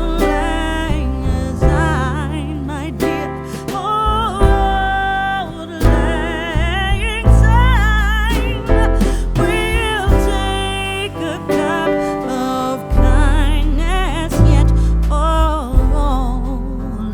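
Music with a singer, the voice wavering with vibrato over deep bass notes and accompanying instruments.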